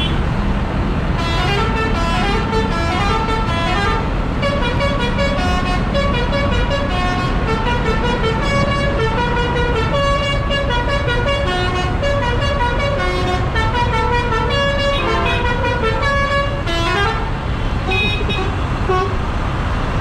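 Heavy diesel engines idling in a steady low rumble, with a tune of short pitched notes, a few a second, playing over it for most of the time.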